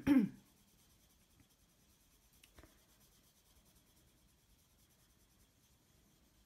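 Faint scratching of a Prismacolor coloured pencil being shaded across paper, with a soft tick about two and a half seconds in.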